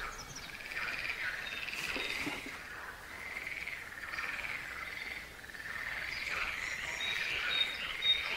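A chorus of frogs croaking, calls of about half a second repeating over and over, with a few short high bird chirps near the end.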